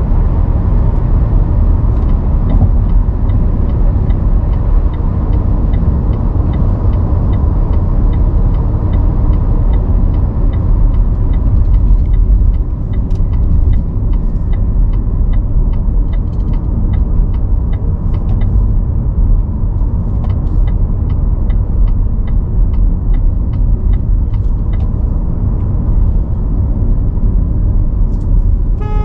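Car driving on city streets: a steady low rumble of engine and road noise, with faint, regular light ticking through much of it.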